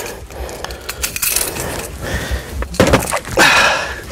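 Irregular knocks, clatter and scuffing inside an aluminium fishing boat as a caught fish on a lip-grip is handled and lifted.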